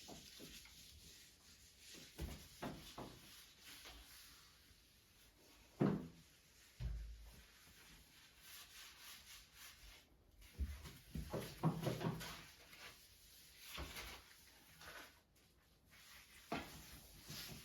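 Scattered light knocks and clicks of household objects being handled, with the loudest knock about six seconds in and a busier run of clatter around the middle of the second half.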